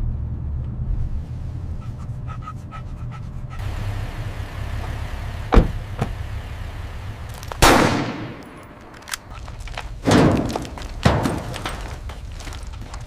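Gunshots: four loud shots a couple of seconds apart, each trailing off in a ringing echo, over a low steady rumble.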